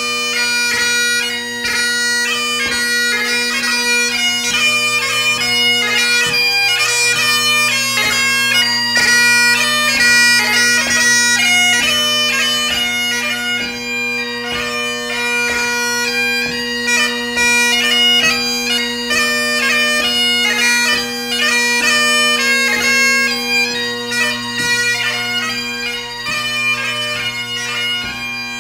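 Great Highland bagpipe played solo: steady bass and tenor drones under a fast chanter melody ornamented with many quick grace notes, in ceol beag light music.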